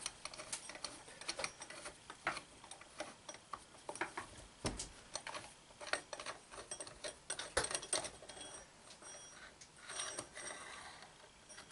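Irregular light metallic clicks and taps of the long through-bolts being fed through the back cover into a Chevy starter's housing, with one heavier knock near the middle.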